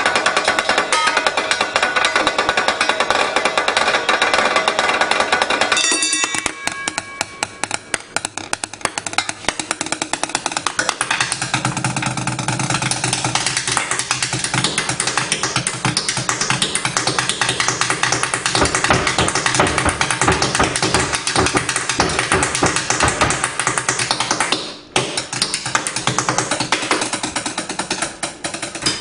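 Fast drum solo played with chopsticks on kitchen pans and other kitchen items: a dense stream of quick taps. Struck metal rings for the first several seconds and cuts off suddenly, and the playing drops out for an instant near the end.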